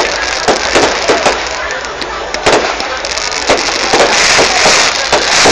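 Fireworks going off: a quick run of loud bangs from bursting shells, with continuous crackling between them.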